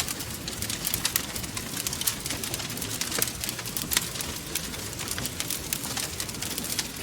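Wood fire crackling in a fireplace: many small sharp pops and snaps, irregular and several a second, over a steady hiss.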